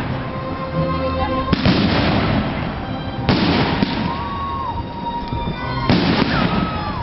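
Aerial firework shells bursting overhead: three loud bangs, each trailing off over a second or so, the second about two seconds in and the last near the end.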